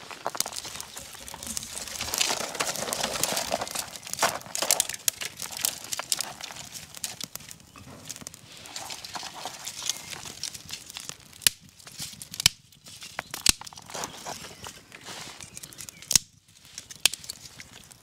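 Small twig campfire catching: dry kindling crackling and popping as it lights, with twigs being handled and pushed into the flames. A few sharper snaps stand out in the second half.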